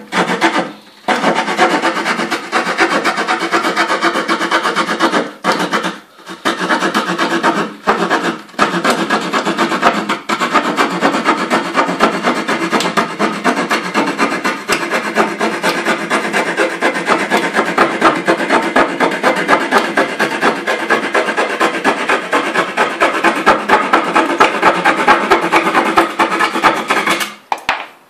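Victorinox pocket knife's small saw blade cutting across a pine board: a fast back-and-forth rasping of short strokes, with a few brief pauses in the first ten seconds, stopping just before the end.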